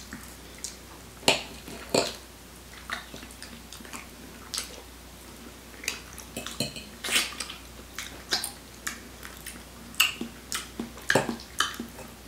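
Forks clinking and scraping against plates in irregular short clicks.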